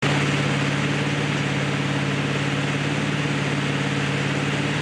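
Tow boat's engine running steadily at towing speed, a constant low hum, over the rushing water of its wake, heard from on board at the stern.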